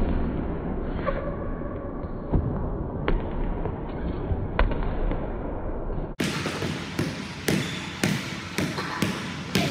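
Basketball bouncing on a hardwood gym floor: a few scattered bounces at first, then from about six seconds in a steady dribble of about two bounces a second.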